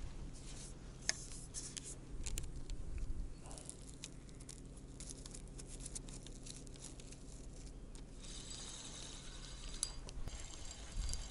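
Scattered clicks and rustles of a spinning rod and reel being handled as the line is freed and the rod taken up. Faint high steady tones come in about eight seconds in.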